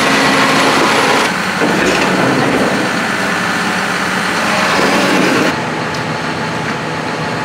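John Deere tractor's diesel engine running steadily, with abrupt changes in the sound about a second in and again near the end.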